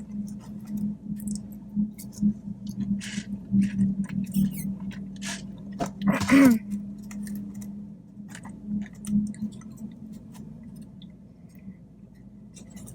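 A woman chewing food close to the microphone, with wet mouth clicks and lip smacks scattered irregularly throughout. About six seconds in there is a brief vocal hum.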